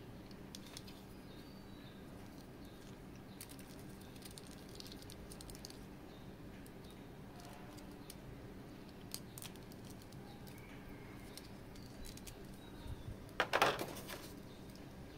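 Scattered light clicks and taps from handling a metal-and-plastic action figure and its parts, with a short, louder clatter near the end, over a low steady hum.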